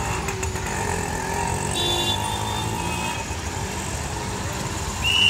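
Steady engine rumble of street traffic mixed with a long-reach demolition excavator at work, with a brief faint high tone about two seconds in.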